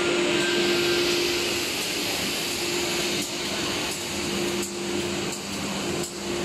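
CNC router running with dust extraction on: a steady hum carrying one constant tone, over a hiss of air, dipping briefly a few times in the second half.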